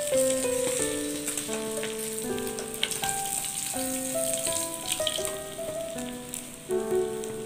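Oil sizzling steadily as whole fish fry in a pan, with a few sharp clicks of metal tongs against the pan, under background music with a melody of held notes.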